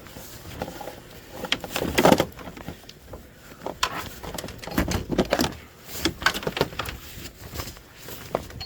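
Irregular knocks, scrapes and thumps of a person climbing a ladder into an attic opening, with one louder thump about two seconds in.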